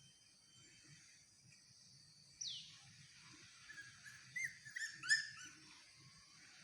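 Puppies squeaking and whimpering. There is one high squeal falling in pitch about two and a half seconds in, then a quick run of short high squeaks about four to five seconds in.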